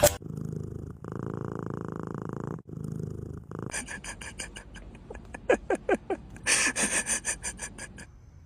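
Domestic cat purring in a steady pulsing rumble, twice, followed in the second half by a run of short, sharper sounds.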